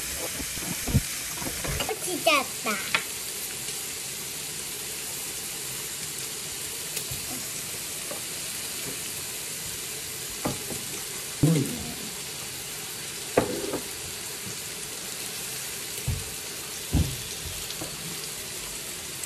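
Pork belly and mushrooms sizzling steadily on a tabletop electric griddle, with a few short knocks scattered through.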